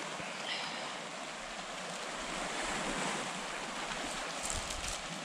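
Lake Superior waves washing steadily onto a rocky cobble shore, with wind. A plastic bag crinkles briefly near the end.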